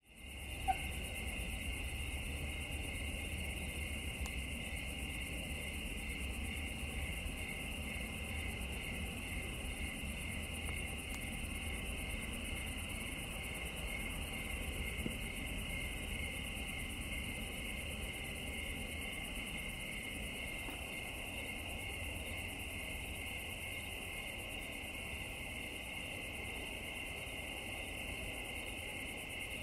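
Night chorus of crickets and other insects: a steady, shrill, pulsing trill, with a fainter higher hiss above it and a low steady rumble underneath.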